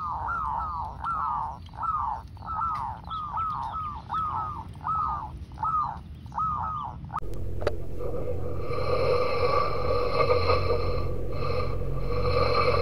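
Zebra dove calling: a quick series of short coos, each falling in pitch, about two a second. The calls stop after about seven seconds, and a steady drone with several held tones takes over.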